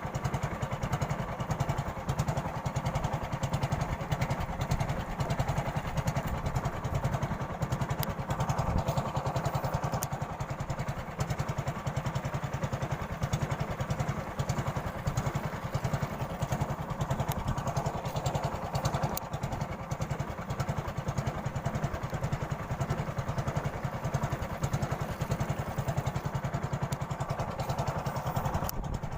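A small engine running steadily at one speed, a fast even chugging with no change in pace.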